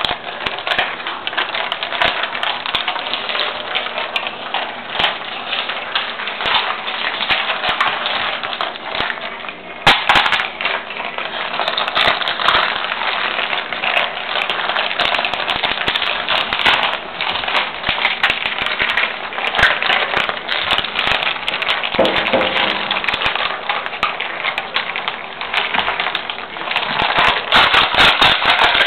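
Dogs crunching and chewing ice cubes on a hard floor: a dense, irregular run of sharp cracks and clicks, with a louder clatter about ten seconds in.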